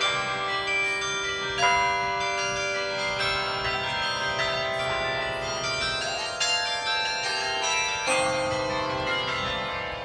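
Carillon bells in a tower playing a slow tune: bell notes struck one after another, each ringing on under the next.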